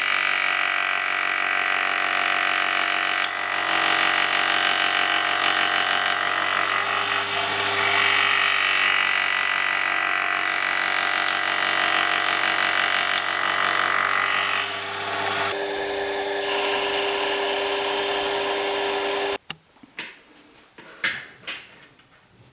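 Small electric power tool running steadily with a whine; its note changes about three quarters of the way through, then it stops abruptly, leaving a few faint clicks.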